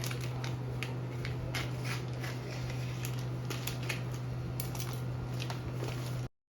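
Packaging being handled and unwrapped: irregular clicks and crinkles over a steady low hum. The sound cuts off abruptly near the end.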